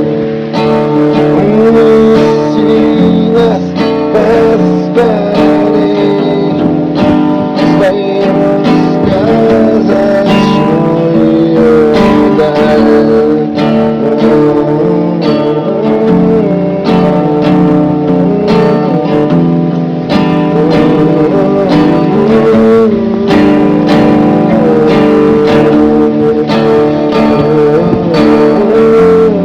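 A song played on strummed acoustic guitar, with a singing voice carrying the melody.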